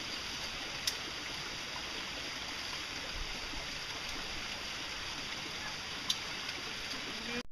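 Steady rushing of a mountain stream, an even hiss, with two sharp clicks, one about a second in and one near the end.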